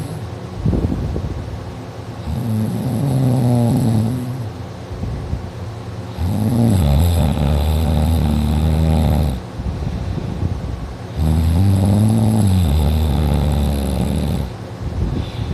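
A sleeper snoring loudly. Long, deep snores repeat every four to five seconds, with quieter breaths between them.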